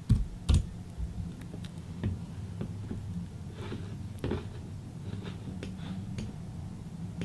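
Computer keyboard and mouse clicks: a dozen or so short, sharp clicks spaced irregularly over several seconds, over a faint low hum.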